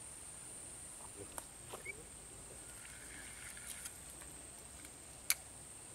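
Quiet outdoor ambience with a steady high-pitched whine, broken by a few faint sharp clicks as an angler works a lure with rod and reel. The loudest click comes near the end.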